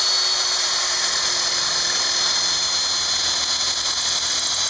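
Electric drill running steadily at full speed with a high whine while drilling a mounting hole through the motorcycle fairing bracket.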